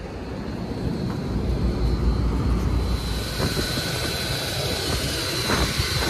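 Carrier rooftop air-conditioning unit running, a steady mechanical whoosh. About three seconds in, a steady high whine joins and the noise grows louder. Low wind rumble on the microphone in the first half.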